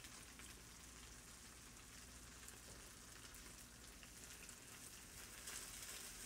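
Faint, steady sizzling of a shredded-cabbage okonomiyaki mixture frying in a pan, growing a little louder near the end.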